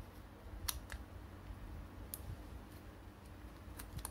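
A few sharp small clicks and taps of hard plastic and metal parts being handled, one about a second in and two close together near the end, over a low rustle of handling, as a spring and metal axle are fitted into an orange plastic toy-robot limb.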